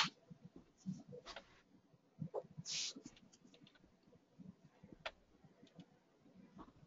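Mostly quiet open conference-call line with faint, scattered clicks and small noises. There is a sharp click right at the start and a short hiss just under three seconds in.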